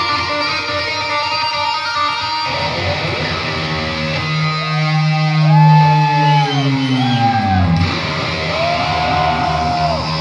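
Solo electric guitar played through an amp: dense held notes, then from about two and a half seconds in a long downward pitch dive, with a run of swooping bends rising and falling in pitch through the rest, the kind made with a whammy bar.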